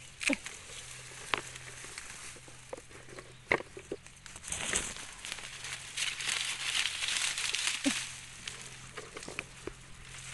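Dry leaves and grass stems rustling and crackling as someone pushes through a bamboo thicket, with a few scattered snaps of twigs or stems. The rustling is heaviest through the middle.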